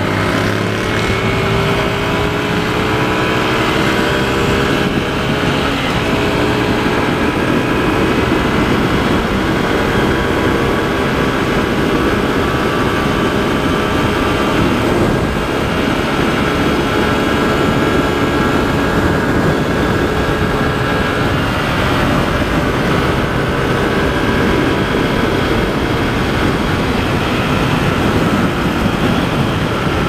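Motorcycle engine running steadily at road speed, its pitch drifting gently up and down with the throttle, with wind rushing over the microphone.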